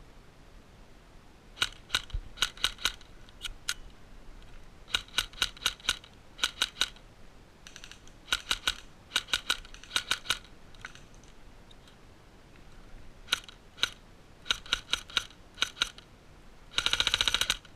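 Airsoft guns firing: quick strings of sharp clicks, a few shots at a time, repeat throughout. Near the end comes a louder, denser full-auto burst.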